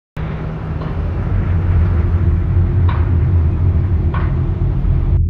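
Loud, steady low rumble of outdoor ambience by the water, with three faint short high chirps about a second in, near three seconds and about four seconds in. It starts abruptly and cuts off just before the end.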